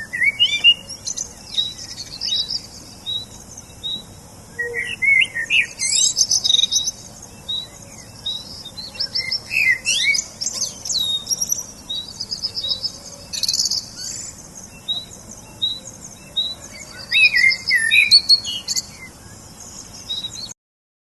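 Small birds chirping and twittering: a steady run of short, high cheeps with louder spells of trilling every few seconds. It cuts off suddenly near the end.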